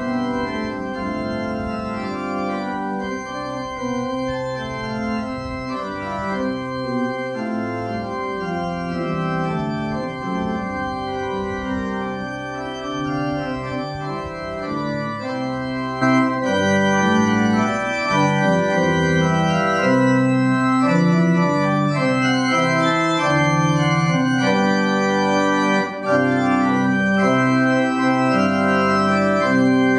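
Church organ playing sustained chords, growing louder about halfway through.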